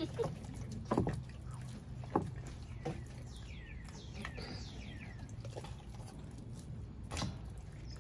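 A pit bull chewing and tearing at a raw whole chicken: irregular wet chewing with a few sharp crunches, the loudest about a second and two seconds in, another near the end.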